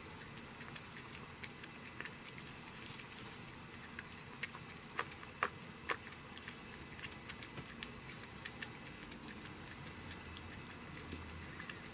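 A cat chewing and licking a whole grilled sardine: soft, irregular clicks from its mouth, with a few sharper clicks about halfway through.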